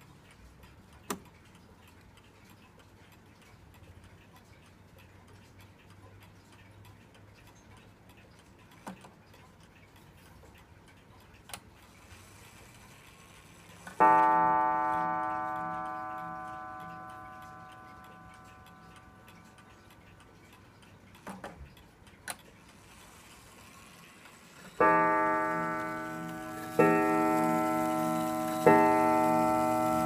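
Mechanical mantel clock with a pendulum and a spiral coil gong, ticking faintly, with a few clicks. About halfway the hammer strikes the gong once for the half hour, and the note rings and dies away slowly. Near the end the hour strike begins, with blows about two seconds apart.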